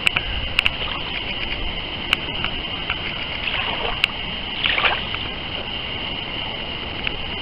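Small lake waves lapping and splashing right at the microphone, with a steady high-pitched tone running underneath and a few sharp clicks.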